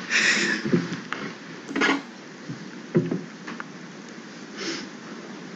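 Quiet room with a few brief paper rustles, Bible pages being turned, and a couple of short soft murmurs.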